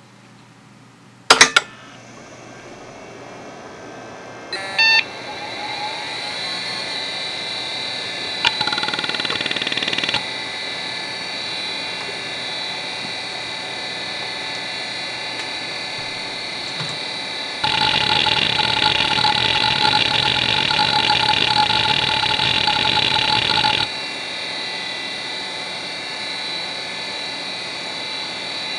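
Conner CFS425A 3.5-inch IDE hard drive (single platter, 3600 rpm): a sharp click about a second in, then the spindle spinning up with a rising whine over a few seconds, broken by a couple of loud clicks, before settling into a steady whine. The heads seek in a rapid buzzing chatter briefly around nine seconds in and again for about six seconds in the middle, as a performance benchmark runs.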